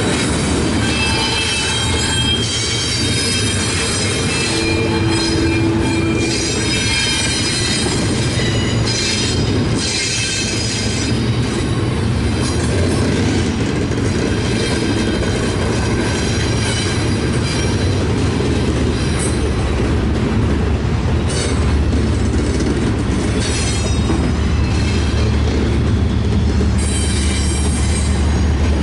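CSX double-stack intermodal freight train rolling past: a steady rumble of wheels and cars on the rails, with high-pitched wheel squeal in the first several seconds. A deeper low rumble grows near the end.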